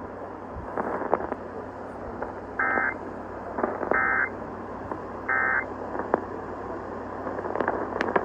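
EAS end-of-message data bursts: three short, buzzy digital bursts about 1.4 seconds apart. They mark the end of the tornado warning alert. They sound over a steady hiss from the radio broadcast, with a few faint clicks.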